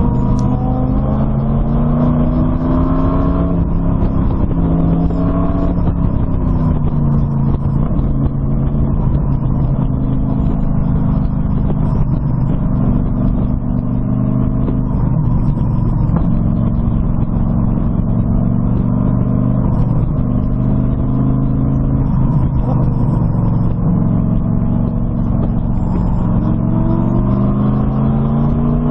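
LS1 V8 in an Exocet being driven hard on a racetrack. It climbs in revs, drops off at shifts and lifts, and pulls up again several times. The engine is open and heard up close.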